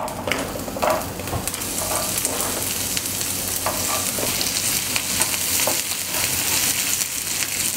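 Chopped onions sizzling in hot oil in a non-stick frying pan, being stirred with a spatula, with scattered light clicks and scrapes over a steady hiss that builds over the first couple of seconds.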